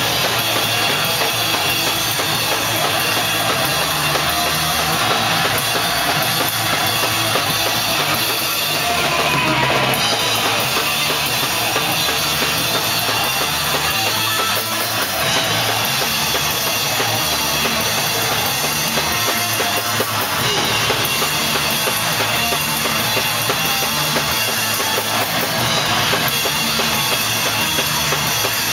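Raw, noisy black hardcore band playing live: drum kit with cymbals and guitar in a dense, unbroken wall of loud sound.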